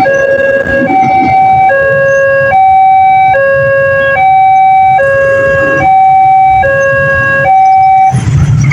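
Railway level-crossing warning siren, a newly fitted Daop 2 Bandung-type unit, sounding two steady electronic tones that alternate, high and low, about every 0.8 seconds. It cuts off near the end and gives way to a rumbling noise.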